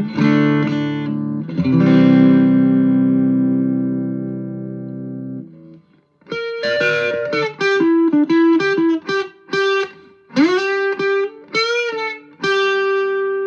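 Distorted electric guitar: a G&L ASAT Classic on its bridge pickup, through the JHS Ross Distortion pedal in silicon mode into a Vox AC10 amp. Strummed chords ring out and fade over about five seconds. After a short gap comes a single-note lead line with several string bends.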